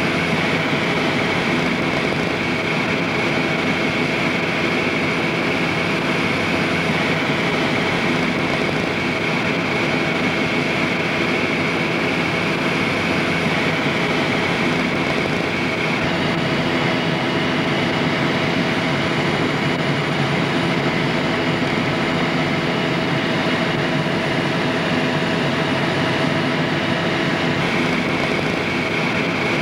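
Helicopter in flight heard from inside the cabin: a steady, loud drone of engine, rotor and transmission, with a constant whine over the rumble.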